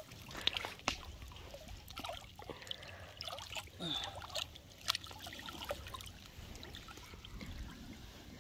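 Water trickling and lapping, with scattered small clicks and knocks.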